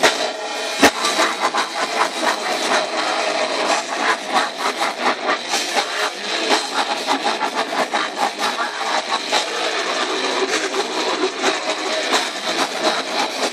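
Death metal band playing live: heavily distorted guitars and bass over fast, rapid-fire drumming, sounding harsh and thin with no deep low end. A sharp knock cuts through about a second in.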